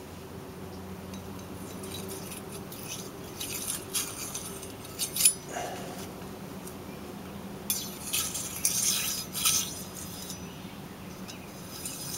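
Scattered light metallic clicks and clinks of a feeler gauge and hand tools against an AC compressor's clutch plate and pulley, as the clutch air gap is checked around the hub. The clicks come in two short groups, over a faint steady hum.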